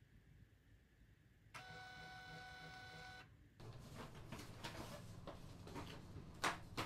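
ScanSnap portable sheet-fed scanner's motor whirring at a steady pitch for about a second and a half as it starts up. It is followed by light, irregular tapping and clicking at a laptop keyboard, with two sharper clicks near the end.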